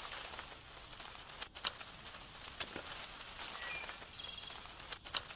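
Outdoor nature ambience with a steady hiss, a few short bird chirps about four seconds in, and two sharp clicks.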